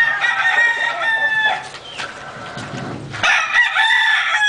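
Two long rooster crows, the second starting about three seconds in.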